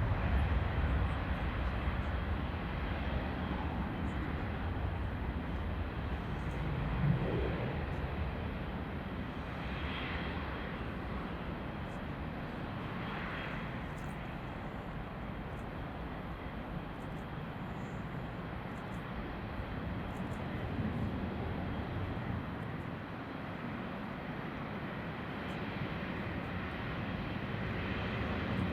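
Jet airliner engines running as a steady rushing rumble, loudest at the start, easing over the first few seconds and building again near the end.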